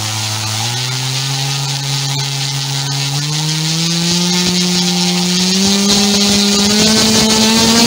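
C6374 200kV brushless outrunner motor on a 12S pack spinning a propeller, its whine stepping up in pitch several times and getting louder as the throttle is advanced. The load rises to about 34 amps, around 1.6 kW.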